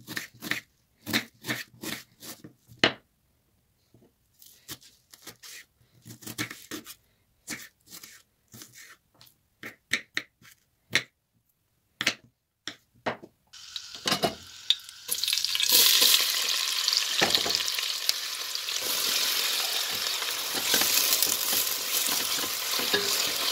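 A knife dicing onion on a bamboo cutting board: a run of sharp, irregular chopping knocks with short pauses. About two-thirds of the way through, diced onion frying in hot oil in a pot begins a loud, steady sizzle as it is stirred with a spatula.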